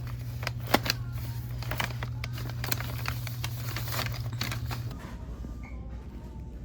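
Shop-floor ambience: a steady low hum that cuts off about five seconds in, with scattered clicks, knocks and clatter.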